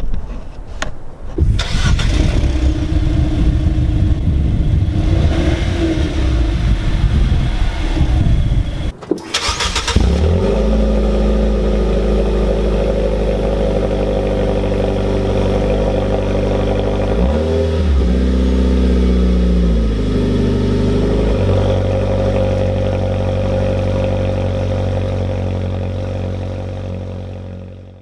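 Car engine running loud through an exhaust with the muffler removed. A rough, noisy stretch gives way after a short break to a steady run whose pitch dips for a few seconds in the middle, and the sound fades out near the end.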